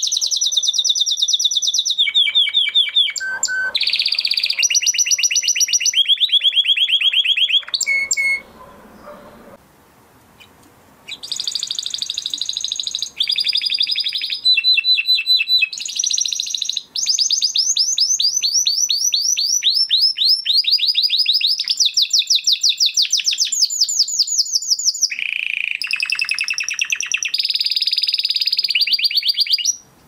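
Spanish Timbrado canary singing: a rapid song of fast repeated-note trills, each held for a second or two before switching to another pitch, with one pause of about three seconds a third of the way in.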